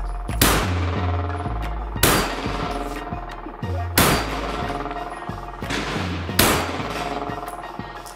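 Four single pistol shots fired at a slow, deliberate pace, roughly two seconds apart, each with a brief echoing tail. Background music plays underneath.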